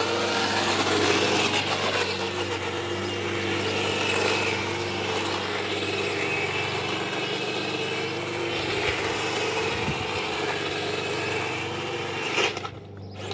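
A 1/16 scale RC Stuart light tank drives fast on a tarmac road, giving a steady mechanical running noise with a wavering whine. The noise stops sharply near the end.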